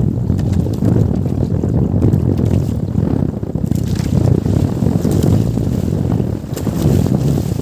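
Steady low rumble of an outrigger boat moving across choppy sea, with wind buffeting the microphone and water rushing past the hull.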